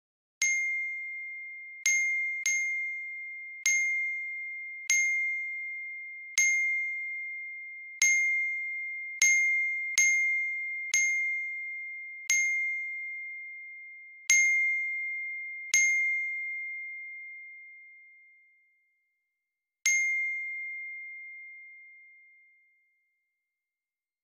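A text-message notification chime: one bright ding at the same pitch, repeated about fourteen times at uneven intervals, each ringing out. The last two ring out longer.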